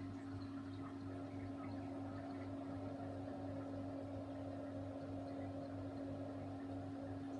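Refrigerator running with a steady electrical hum, and a fainter rushing noise joining about a second in.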